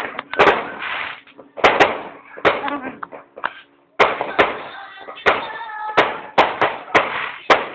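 Fireworks and firecrackers going off in quick, irregular succession: a dozen or so sharp bangs, some in close pairs, with a brief lull about three and a half seconds in.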